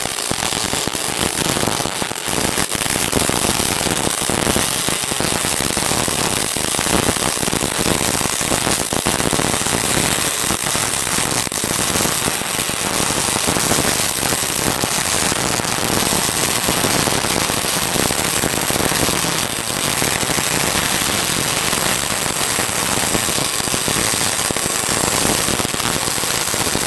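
MIG welding arc from a Tenya Multimig265 welder running aluminium wire on aluminium: a steady, dense crackle and hiss held as one continuous bead.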